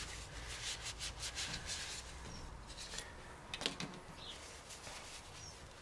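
Light handling noises of a gearbox part: rubbing and small clicks as the removed oil guide is handled and set down on the workbench, with a sharper knock a little over halfway through.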